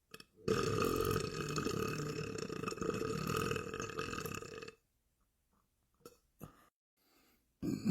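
A man belching one long, drawn-out burp lasting about four seconds. A short pause with a couple of faint clicks follows, and another burp starts just at the end.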